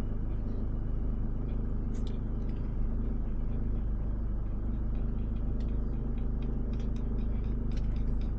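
Van engine running steadily, a low even hum with a few faint ticks.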